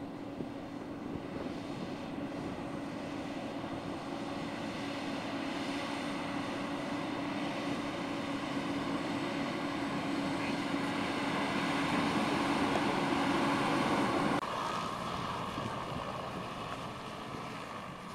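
Mercedes-Benz Actros truck with a Bergmann manure spreader body running while spreading solid manure: engine and spreader mechanism with a steady hum, growing louder as the truck comes closer. The sound changes abruptly about fourteen seconds in and then slowly fades.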